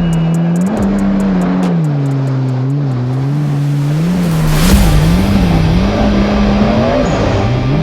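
Hip-hop instrumental with a deep, wavering bass line. The ticking hi-hats drop out about three seconds in, and a loud rushing noise comes in near the middle.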